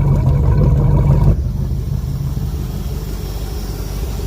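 Motorboat engine running steadily, with a constant low hum. About a second in it cuts abruptly to a quieter, even rumble.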